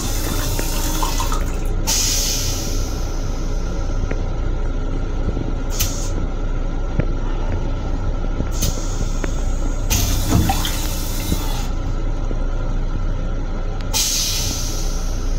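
Train toilet flushing: water sprays into the stainless-steel bowl in several hissing bursts a few seconds apart, the longest near the middle lasting about a second and a half. Under it runs the steady low rumble of the railcar.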